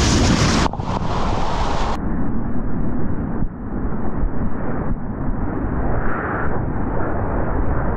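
Heavy wind buffeting the microphone, with the rumble of surf behind it. The sound turns muffled, losing its high end, about two seconds in.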